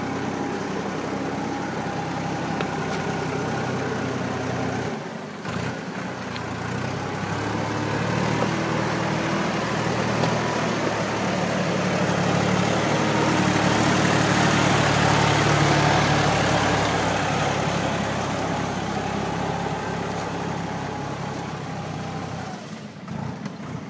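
Erkunt 70 tractor's diesel engine running steadily. It dips briefly about five seconds in, then grows louder to a peak about two-thirds of the way through and eases back again, dropping off near the end.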